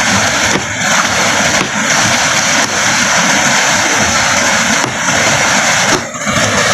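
Fast-flowing mountain stream and small waterfall rushing over rocks, a loud steady noise.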